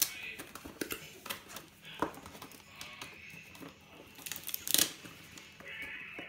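Cardboard and clear plastic packaging being handled and pulled open by hand: scattered rustles, scrapes and small clicks, with a louder burst of rustling about four and a half seconds in.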